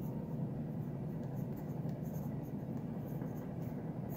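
Pen writing on a notebook page: faint, short scratching strokes as a word and an arrow are written, over a steady low background hum.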